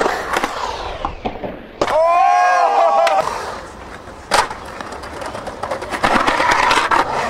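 Skateboard wheels rolling over a concrete bowl, with a sharp clack of the board about four seconds in. Around two seconds in, a long pitched shout rides over the rolling.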